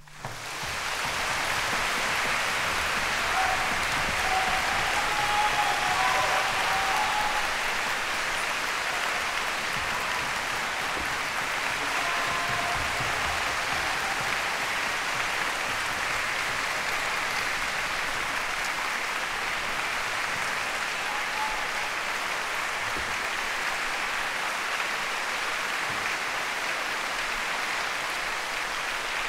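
Concert hall audience applauding, a dense steady clapping that starts abruptly just as the harp concerto ends.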